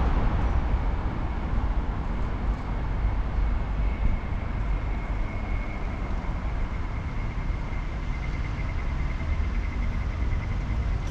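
Steady low rumble of a moving vehicle, with a thin high whine that comes in about four seconds in and holds.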